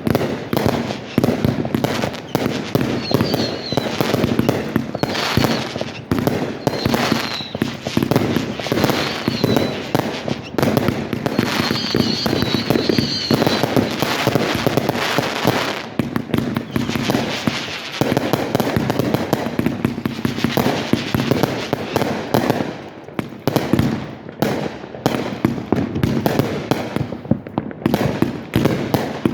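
Fireworks display: a dense, continuous barrage of bangs, pops and crackles, with short high wavering whistles now and then in the first half.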